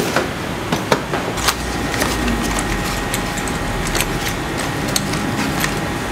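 Paper packaging being handled and unfolded by hand, with scattered crinkles and sharp clicks from the small metal part inside, over a steady background hum.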